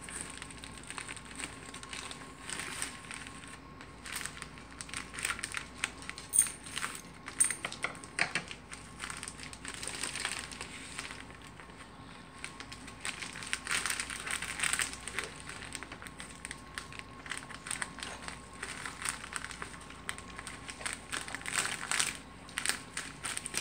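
Plastic poly mailer crinkling and rustling as it is handled, cut with scissors and pulled open, in irregular bursts. A few sharp clicks stand out about six to seven seconds in.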